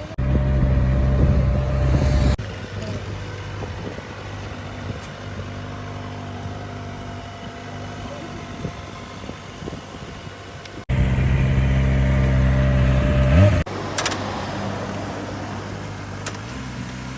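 Kawasaki ZX-25R's 250 cc inline-four engine idling steadily, with two louder stretches of a few seconds each that start and stop abruptly. The second ends in a short rise in pitch.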